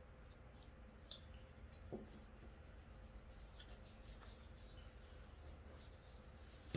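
Faint rubbing and rustling of scrapbook paper as hands press and smooth it onto a freshly glued pumpkin cutout, with a soft tap about one second and two seconds in.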